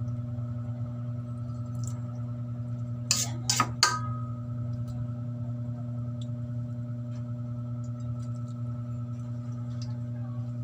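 A metal spoon clinks three times in quick succession against a metal cooking pan about three seconds in, with brief ringing after. A steady low hum runs underneath.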